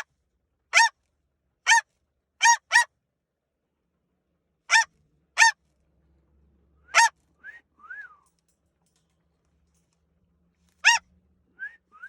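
Pet parrot giving about nine short, loud calls in irregular groups, each a brief note that rises and falls, with a few fainter rising-and-falling whistles between them.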